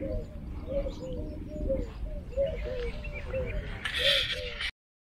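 Doves cooing over and over, short rising-and-falling coos two or three a second, with a few faint higher bird chirps and a low rumble underneath. The sound cuts off abruptly just before the end.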